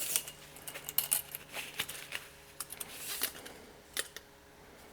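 Irregular light metallic clicks and rattles, with short scratchy rustles, as small metal parts and a rod are handled.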